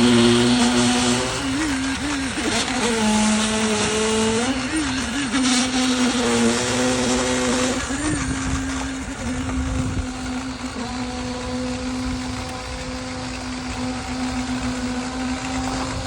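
Engine of construction machinery running during a concrete roof-slab pour, with a steady hum whose pitch wavers and dips several times in the first half as it takes load, then holds steady.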